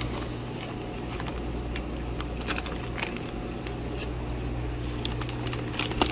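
Clear plastic shipping-bag liner crinkling and crackling as a hand rummages in it, with sharp irregular crackles and the loudest snap near the end. A steady low hum runs underneath.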